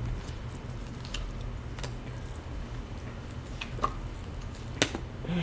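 A steady low electrical hum with a few faint clicks and taps, and one sharper click about five seconds in.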